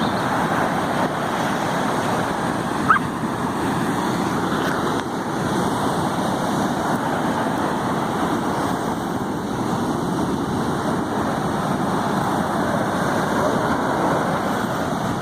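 Sea surf washing in: a steady, unbroken rush of waves with no clear single breaks.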